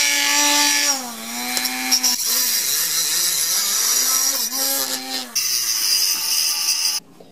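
Dremel rotary tool with a diamond cutting wheel cutting through a brass pipe nipple, its high-pitched motor whine sagging in pitch each time the wheel bites and recovering between cuts. A little after five seconds the sound changes as a white wheel on the same tool goes over the cut end. The tool stops abruptly near the end.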